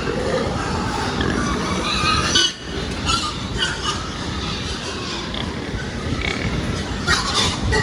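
Pigs squealing and grunting over a steady rushing noise, with sharp squeals about a third of the way in and again near the end.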